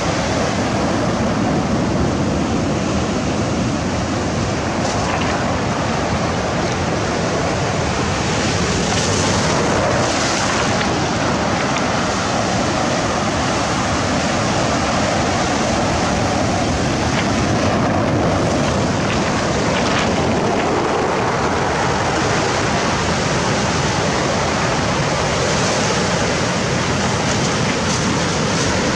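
Sea surf washing steadily, swelling now and then, with wind on the microphone.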